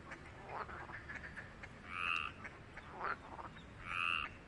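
Green water frog (Pelophylax) croaking with its paired white vocal sacs puffed out. Two short rattling calls come about two seconds apart, one about two seconds in and one near the end.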